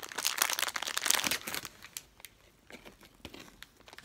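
Plastic gummy-candy packets crinkling as a baby's hands grab and squeeze them: a dense run of crackling for the first second and a half, then sparser, quieter rustles.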